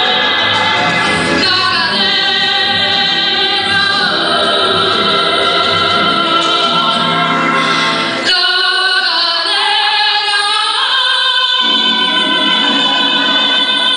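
Music with operatic singing, long held notes wavering in pitch. About eight seconds in, the low part drops away for a few seconds, leaving only the higher voices, then comes back.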